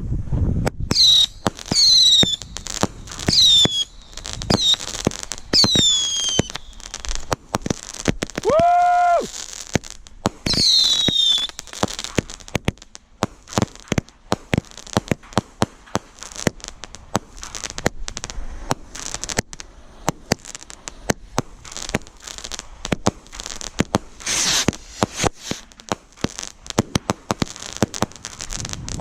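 Consumer fireworks going off: a run of short high whistles, each falling in pitch, then a lower whistle about nine seconds in, with dense popping and crackling throughout.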